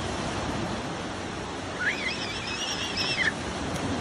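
Small waves breaking and washing up a sandy beach in a steady rush of surf. About two seconds in, a high squeal rises, holds with a waver for about a second and a half, and falls away.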